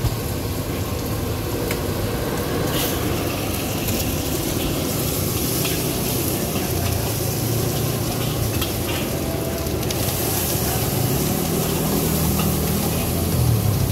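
Food sizzling and hissing in a hot steel wok as a street fried-rice cook stirs it, with a few sharp clinks of the metal spatula against the pan.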